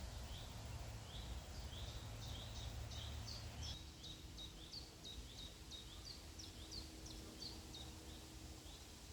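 A small bird chirping rapidly in a steady series of short, high chirps, about three or four a second, over a low rumble that drops away about four seconds in.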